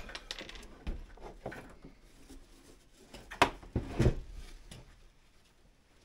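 Handling noise: clicks and knocks as a diesel heater's metal housing and its wooden mounting post are moved about, with two louder knocks about three and a half and four seconds in.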